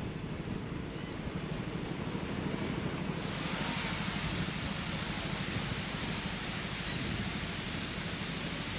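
Wind buffeting the microphone outdoors, with a steady hiss that grows louder about three seconds in.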